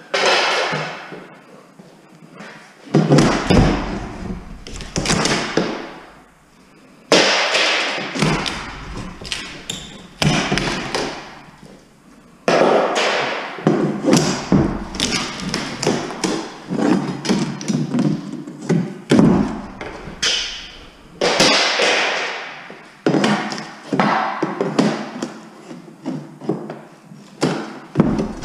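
A loaded two-wheel hand truck being wheeled and set down on a hard floor, its long boards shifting. Several heavy thuds and many lighter knocks and clatters follow one another throughout.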